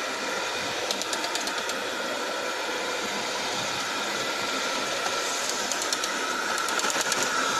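A 400-watt Bosch electric hand mixer running steadily with its dough hooks kneading stiff flour dough in a steel bowl, with runs of light clicking now and then.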